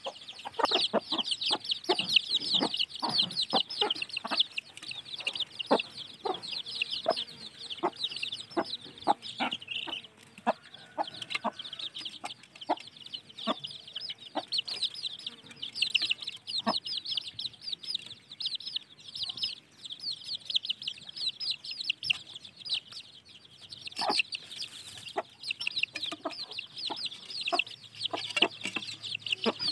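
Young kampung chickens peeping rapidly and continuously in high chirps, with short clucks mixed in, thickest in the first third and sparser after.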